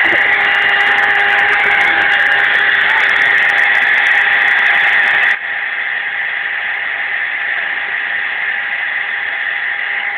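Electric hair dryer running steadily: a loud whooshing hiss over a steady motor whine. About five seconds in it gets slightly quieter and duller, then runs on evenly.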